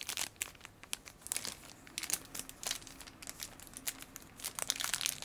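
Thin clear plastic bag crinkling and crackling in quick, irregular bursts as hands unwrap a small plastic doll wand from it.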